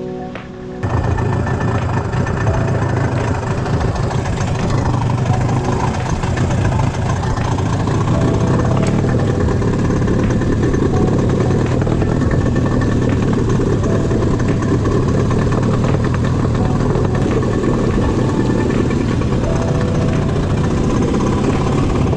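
Boat motor running steadily at sea, with wind and water noise; it starts abruptly about a second in.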